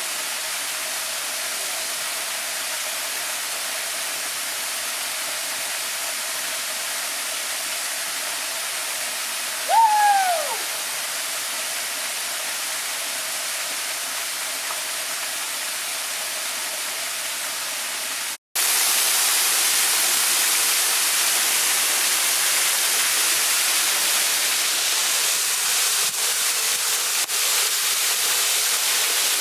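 Waterfall rushing steadily. About a third of the way in, a single short whistled call rises and falls. After a sudden break about two-thirds through, the rush comes back louder and brighter.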